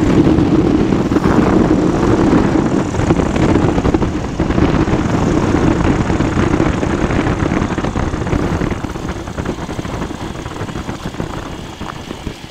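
Flexwing microlight trike's engine and pusher propeller running at low power during the landing roll-out, with air rushing past. It is loud at first and fades steadily over the second half as the trike slows on the grass.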